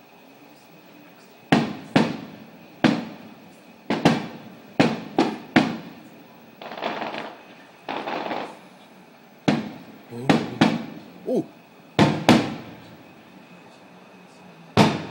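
Aerial fireworks bursting: a run of about fifteen sharp, irregular bangs starting about a second and a half in, each fading out after it. There are two longer rushing bursts in the middle.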